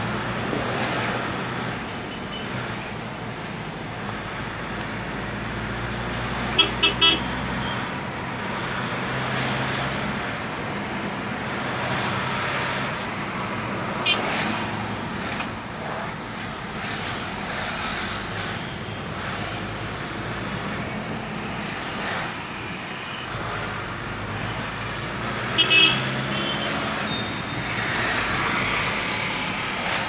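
Steady road-traffic noise heard from inside a car in slow, congested traffic, with passing buses and cars. A vehicle horn gives three quick toots about seven seconds in and two more near the end.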